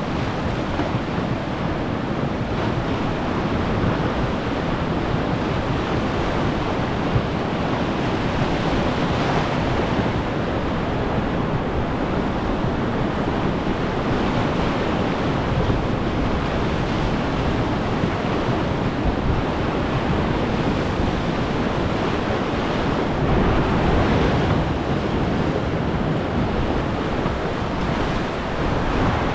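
Steady, loud rush of whitewater rapids churning around the boat.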